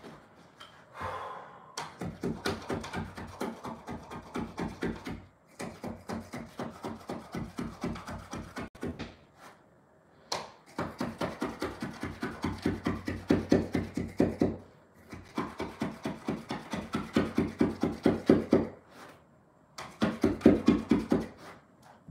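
New carpet being cut in along the wall edge: runs of quick scraping strokes, several a second. The runs last a few seconds each, with short pauses between them.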